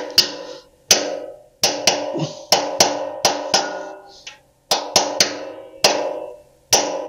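Small hammer tapping a socket held on a generator engine's valve stem, a run of sharp metal taps about two a second, each ringing briefly, with a short pause a little past the middle. The taps drive down a gummed, stuck valve that has just been sprayed with cleaner to free it.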